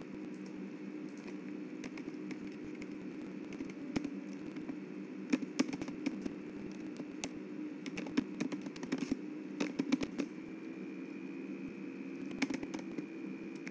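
Computer keyboard keys clicking in irregular bursts as text is typed, over a steady background hum.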